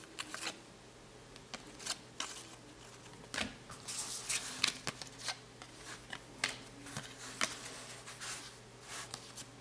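Cardboard trading cards being flipped and slid against one another by hand: irregular light clicks and swishes as each card is moved through the stack.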